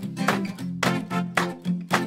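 Background music with plucked guitar notes in a steady, quick rhythm, about three or four notes a second.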